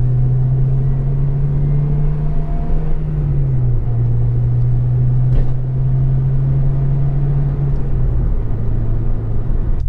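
Acura RSX Type-S's 2.0-litre K20 four-cylinder cruising steadily, heard inside the cabin through a Yonaka catback exhaust. It makes a steady deep, low drone with no raspiness. The pitch steps down slightly about three and a half seconds in, and eases lower again near the end.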